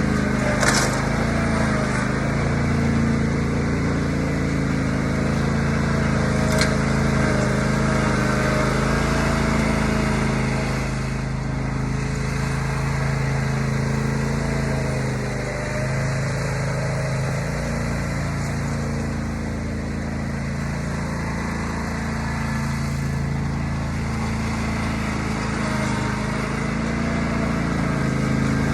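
Riding lawn mower's small engine running steadily, a little quieter through the middle, with two sharp clicks in the first several seconds.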